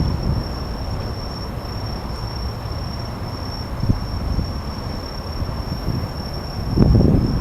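Autumn insects singing one steady high trill. A low rumble runs underneath and swells near the end.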